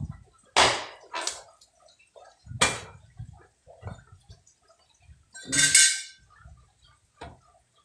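Cleaver chopping thin dry sticks on a round wooden chopping block: a handful of sharp chops spread out, the loudest about five and a half seconds in with a brief metallic ring.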